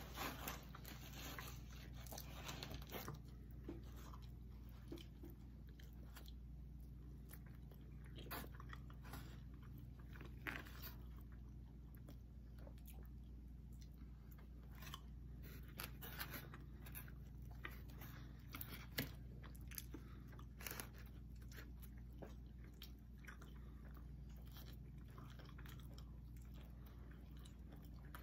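Close-up chewing and biting of pizza, with irregular soft crunches and clicks over a faint steady hum.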